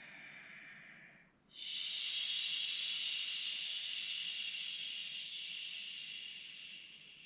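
A woman's long exhale through the mouth on a 'shh' sound, a steady hiss that starts about a second and a half in and fades slowly over about five seconds. It is the lengthened out-breath of a yogic breathing exercise, the exhale held two to three times as long as the inhale.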